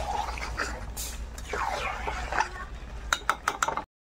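A spatula scraping and stirring chicken pieces in thick spice paste in an aluminium kadai: a run of sweeping scrapes while the meat is fried down (bhuna). Several sharp clicks of the spatula against the pan come near the end, over a steady low hum.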